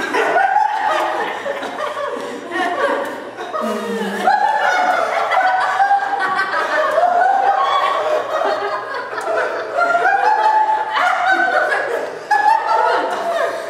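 Several people laughing, with bursts of chuckling and snickering that overlap, and a few murmured words mixed in.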